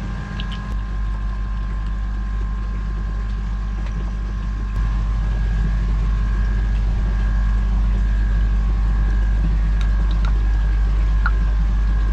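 A steady low motor-like hum with two faint, constant whining tones above it, stepping up in loudness about five seconds in, with a few faint clicks.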